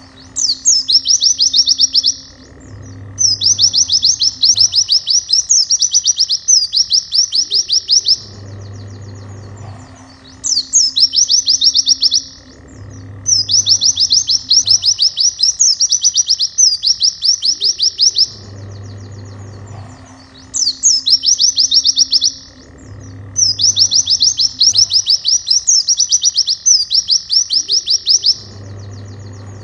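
White-eye (pleci) song: fast, high, trilling phrases of a second or two each, coming in runs of three, with the same sequence repeating about every ten seconds, over background music.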